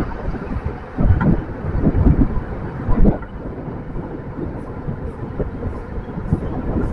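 Wind buffeting the microphone of a camera riding along a city road, a low gusty rumble with road and traffic noise under it; the strongest gusts come about one, two and three seconds in, then it settles to a steadier rush.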